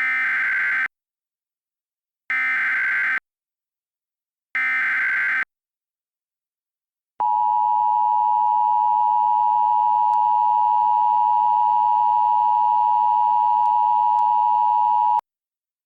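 Emergency Alert System SAME header: three harsh, warbling data bursts of about a second each, with short silences between, encoding an alert for a flash flood emergency. Then the EAS attention signal, a single steady tone held for about eight seconds before it cuts off.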